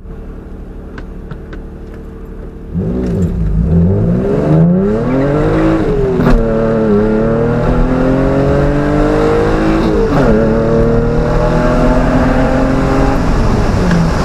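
Hyundai Tiburon exhaust through DC Sports headers and a Magnaflow muffler, with no catalytic converters or resonators, heard from inside the cabin with the windows down. The engine idles, then about three seconds in goes to wide open throttle, its pitch climbing through the gears and dropping sharply at each upshift, about three times.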